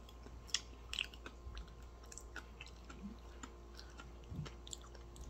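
A person chewing an Oreo sandwich cookie with sugar crystals in the cream, quietly, with scattered small crunches and clicks.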